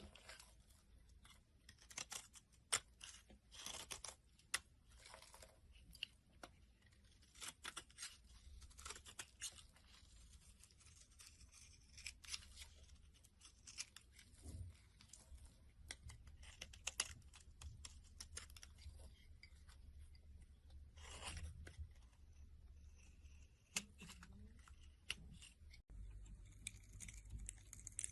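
A blade cutting into a bar of soap: quiet, irregular crisp scrapes and crackles of soap breaking away.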